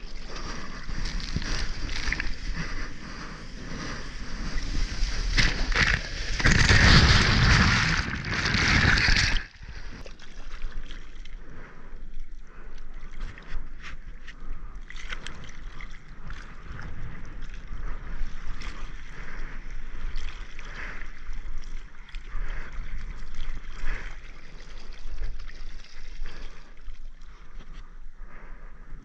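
Seawater sloshing and splashing right at a mouth-held action camera as a bodyboarder paddles and floats on his board, with some wind on the microphone. A louder rush of water lasts about three seconds and cuts off suddenly about a third of the way in.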